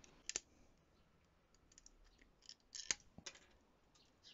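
Side cutters snipping at the plastic louvres of a car dashboard air vent: a few sharp clicks, the loudest about three seconds in, with faint plastic ticks between.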